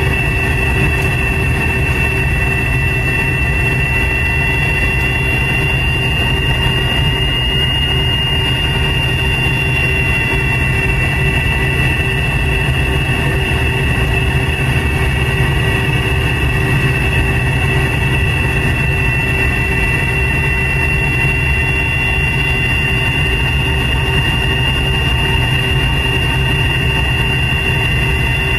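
Cabin noise of a McDonnell Douglas MD-88 taxiing, heard from a seat near its rear-mounted Pratt & Whitney JT8D turbofans running at low taxi power: a steady low rumble under a high engine whine that edges up slightly in pitch about eight seconds in.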